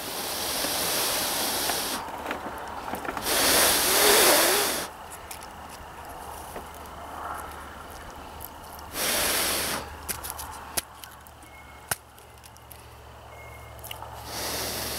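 Scraping and rustling of fingers picking into a dry chaga fungus lump, with small scratchy clicks and three hissing bursts of noise, the loudest about four seconds in.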